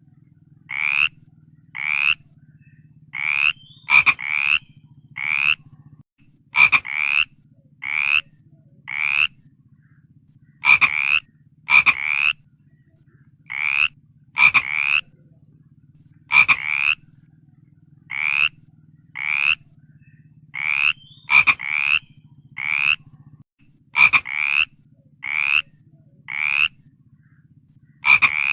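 Frogs calling: short croaks repeated one to two a second in loose runs, some starting with a sharp click, over a steady low drone.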